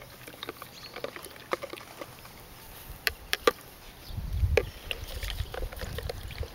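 Metal spoon stirring soapy water in a plastic basin: light sloshing with scattered clicks of the spoon against the basin. From about four seconds in, a low wind rumble on the microphone joins it.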